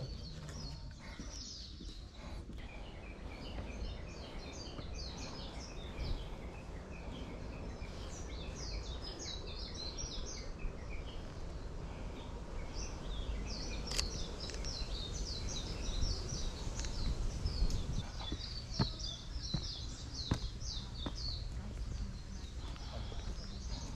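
Birds chirping in the surrounding woodland, many short high calls overlapping, over a low steady rumble. A few sharp clicks come in the second half.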